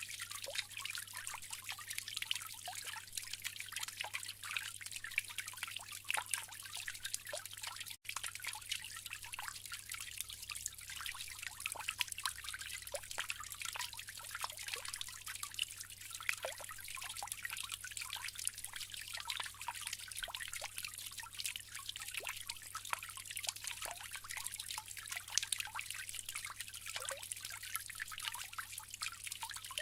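Bamboo water fountain trickling steadily, with many small drips and splashes, over a steady low hum.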